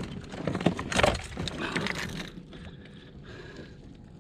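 A flurry of knocks, clicks and rattles from the catch and gear being handled in a fishing kayak, loudest about a second in. After about two seconds it settles to a quieter steady background.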